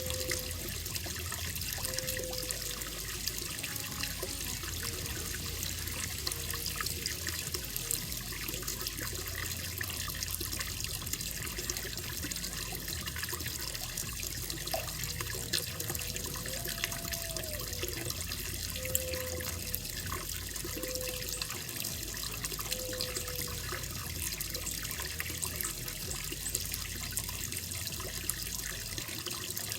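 Steady running water in a koi pond. A faint short call repeats a few times about two seconds apart near the start and again in the second half.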